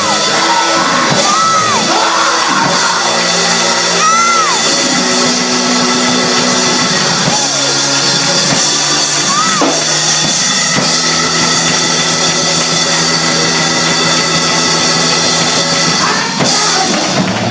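Church music with long held chords, loud and steady, with a few brief whooping voices rising and falling over it.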